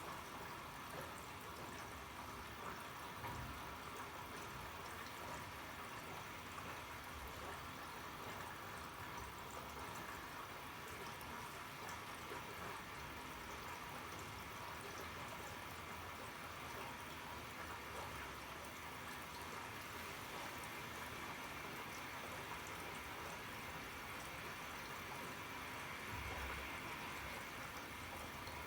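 Arçelik 3650 SJ washing machine filling with water: a steady rush of inlet water into the drum, with an occasional faint low thump. It is a long fill, drawing a large volume of water for a bulky quilt load.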